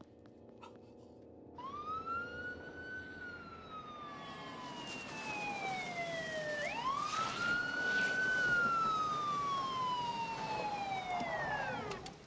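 A siren wailing in two slow cycles, each sweeping quickly up and then gliding slowly down. It stops near the end.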